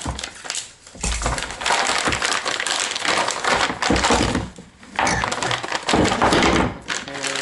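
Vacuum-sealed plastic bag crinkling and crackling as it is cut open with a knife and handled, in three long stretches with short pauses.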